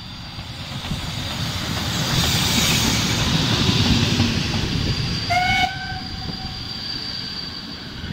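Ty42 steam locomotive and its train of passenger coaches rolling past, the running noise swelling as the engine and then the coaches go by and easing off after. About five seconds in a short high-pitched tone sounds, and a thin high squeal carries on through the rest.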